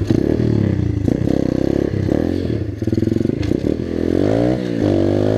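125 cc pit bike's single-cylinder four-stroke engine revving hard under way, its pitch climbing, dropping sharply twice and climbing again. Clattering from the bike over the rough dirt track runs underneath.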